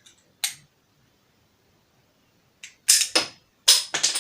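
Plastic Lego bricks clicking and clattering as pieces are handled and pressed together: one click about half a second in, then a quick run of sharp clicks and clatter near the end.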